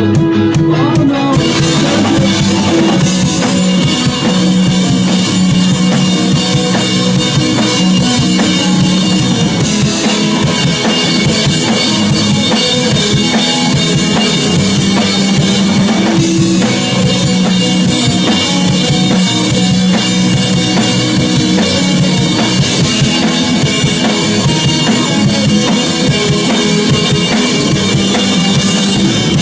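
Band music driven by a drum kit, with bass drum and snare hits playing a continuous beat.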